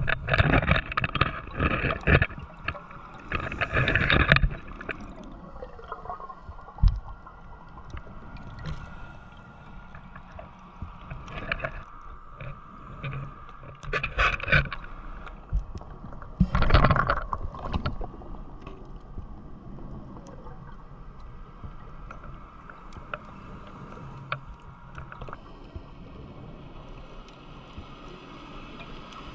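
Bubbles from a diver's scuba regulator on exhalation, in loud bursts: several in the first few seconds, then a few more with long gaps between. A steady underwater hiss runs beneath.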